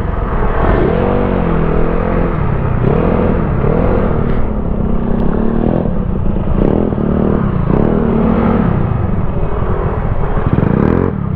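Motor scooter engines running with wind noise on the microphone, the engine note rising and falling repeatedly as the scooters slow down and pull in.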